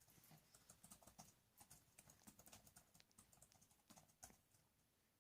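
Near silence with faint, irregular small clicks and rustles.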